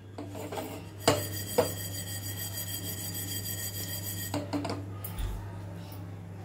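Sesame seeds being dry-roasted in a small non-stick pan, the pan shaken so the seeds slide and rasp across its surface for a few seconds. Two sharp knocks come about a second in, and a few smaller ones follow after about four seconds.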